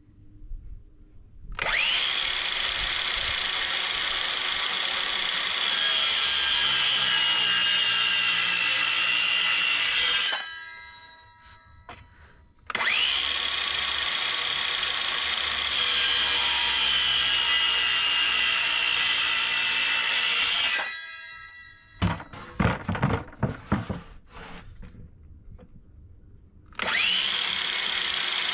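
DeWalt circular saw cross-cutting a pine 4x4 post, two runs of about eight seconds each. The motor's whine sags slightly under load during each cut and winds down after it. The post is thicker than the blade's depth, so it is cut from one face and then the other. Between the second and third runs there are irregular wooden knocks as the post is handled, and the saw starts again near the end.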